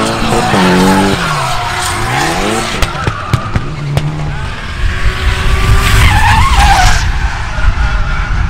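Drift cars sliding through a corner: engines revving up and down, a few sharp cracks about three seconds in, then tyres squealing and skidding, loudest about six seconds in.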